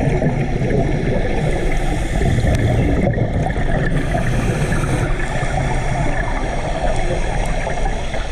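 Muffled underwater noise picked up through a camera housing: a steady low rumble with a gurgling, bubbly crackle.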